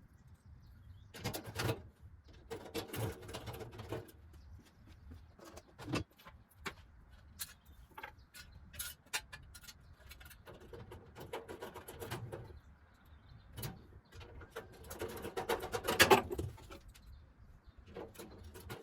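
Irregular clicks, knocks and rustling from parts and packaging being handled, with a louder flurry of knocking and rustling about fifteen seconds in.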